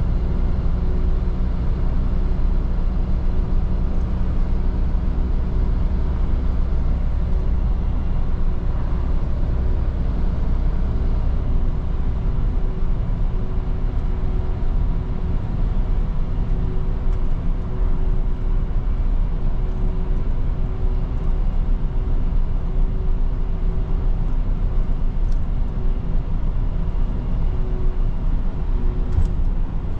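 Mercedes-Benz Atego 1024 truck's four-cylinder diesel engine running steadily at road speed, heard from inside the cab along with tyre and road noise. The deep engine drone eases about twelve seconds in.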